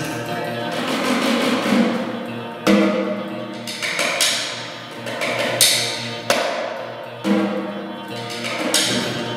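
Ambient electric guitar sustaining layered drone chords through effects pedals over a low pulsing note. A snare drum is struck by hand and stick every second or two, each hit ringing out.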